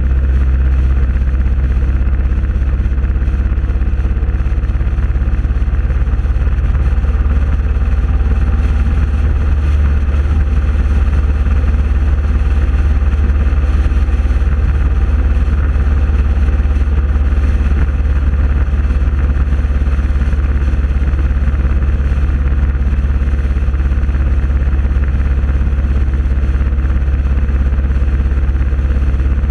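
Steady, loud low drone of engine and road noise from a vehicle cruising along a highway in a procession of motorcycles, without revving or gear changes.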